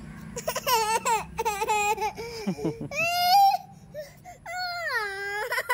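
Domestic cat meowing, about six meows in a row, several of them long and wavering down and up in pitch.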